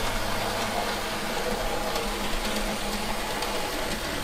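Small electric motor of a Graham Farish N gauge 57xx pannier tank running steadily under its newly fitted DCC decoder, body shell off, as it hauls wagons round the track: a steady whir and hum with faint wheel ticks. The mechanism is still bedding in.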